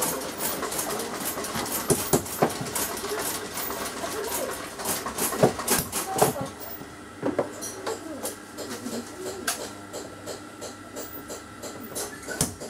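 Leather-workshop background noise: scattered clicks and knocks of work at the benches, with faint voices in the room.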